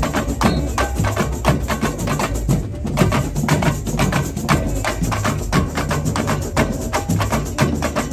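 Samba drum corps (bateria) playing: a dense, fast rhythm of many hand-held drums struck together, with sharp crisp strikes over a steady low drum pulse.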